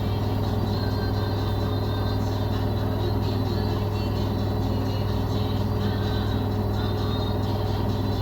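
LG commercial washing machine running with a steady low hum that does not change.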